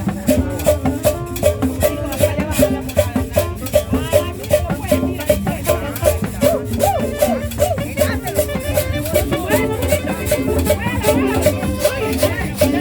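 Upbeat tropical Latin dance music, with a fast, even percussion beat running under pitched instruments.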